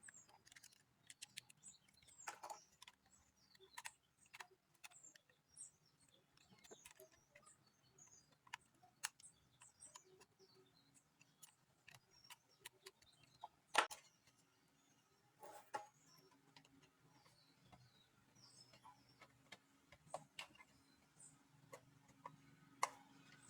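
Faint, scattered clicks and ticks of small screws, a screwdriver and the plastic casing of a 4G home router being handled as it is taken apart, with a couple of sharper clicks about fourteen and sixteen seconds in.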